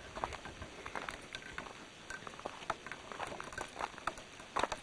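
Faint, irregular crunches and ticks of footsteps on a dry, stony dirt road, with a slightly louder crunch near the end.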